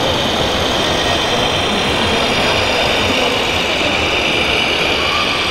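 Steady engine drone from a 1:14 scale RC car-transporter semi-truck driving slowly, with even background noise behind it.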